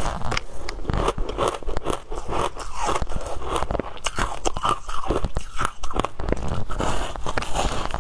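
Shaved ice topped with passion fruit pulp being bitten and chewed: dense, irregular crunching and crackling of the ice in the mouth.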